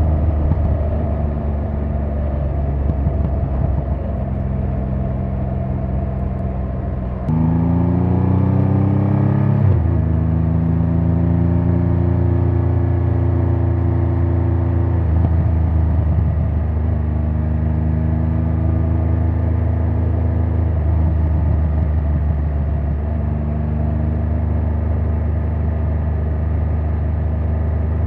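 2024 Triumph Rocket 3 GT's 2,500 cc inline-three engine and exhaust running under way at a steady cruise, with a low, even note. About seven seconds in, the revs climb for a couple of seconds as the bike accelerates, then drop sharply at a gear change. It settles back into steady cruising with small throttle changes, and the revs start to rise again near the end.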